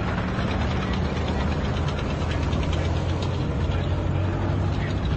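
Engines of armoured military vehicles running in a steady, low drone as a column of them drives past.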